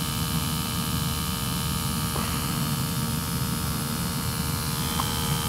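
Steady low hum of a newly installed atmospheric gas-fired boiler running during a combustion test, with a faint click about two seconds in and another near the end.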